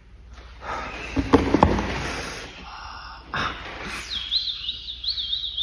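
Beatboxer's mouth sounds imitating a sound for a guessing game: breathy hissing with a few sharp clicks, then a high whistled warble that wavers up and down from about four seconds in.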